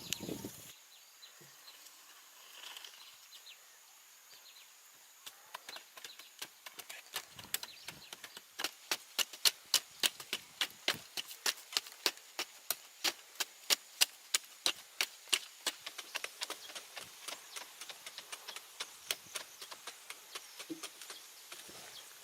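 A steady run of sharp knocks or taps, about two to three a second, starting about five seconds in, loudest in the middle and thinning out near the end.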